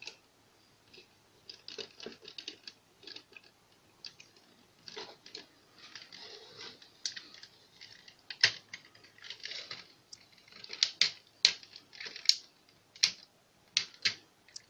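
Plastic parts of a Transformers Ultra Magnus figure and its add-on war hammer being handled: irregular plastic clicks and taps as the hammer is worked into the figure's hand and the fingers adjusted. The clicks grow sharper and more frequent in the second half.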